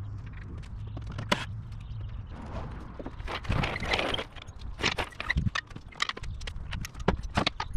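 A 2-ton steel engine hoist being pulled on its casters across concrete and set in place: a scraping rush about halfway through, then a quick run of metal clicks and clanks.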